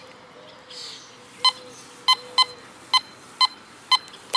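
Teknetics Omega 8500 metal detector beeping as its coil passes over a buried target: short, identical high beeps about twice a second, starting about a second and a half in. The detector reads the target in the 80s, the dime-quarter range.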